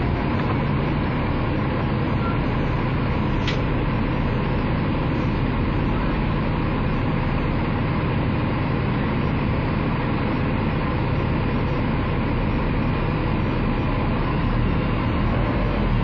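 Three-axle double-decker bus's diesel engine idling steadily while the bus stands still, with one brief click about three and a half seconds in. The sound grows a little louder near the end.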